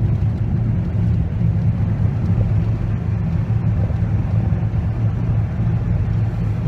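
Steady low rumble of a car on the move, heard from inside the cabin: engine and road noise with no breaks.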